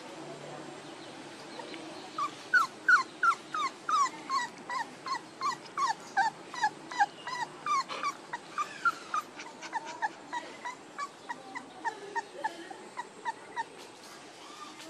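Month-old puppies whimpering: a rapid run of short, high cries, each falling in pitch, about three a second. It starts about two seconds in, is loudest at first and thins out near the end.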